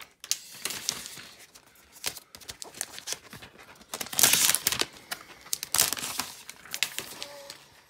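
Thin plastic protective wrap crinkling and rustling in irregular bursts as it is pulled off a new iPad Pro, loudest a little past the middle.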